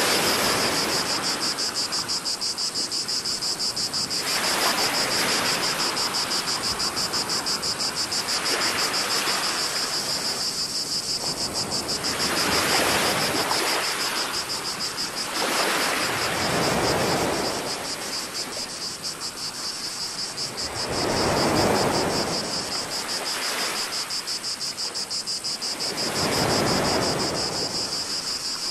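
Small waves washing ashore in surges every four to five seconds, under a steady high-pitched chorus of cicadas.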